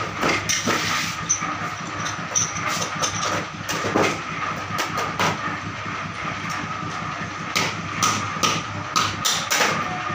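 Metal molds and press parts clicking and clanking irregularly as they are handled at hand-operated screw presses, over a steady hiss with a faint hum.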